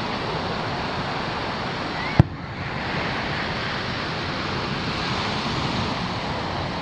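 Surf washing onto a sandy beach as a steady rushing noise, broken about two seconds in by a single sharp bang from a firework shell bursting in the distance.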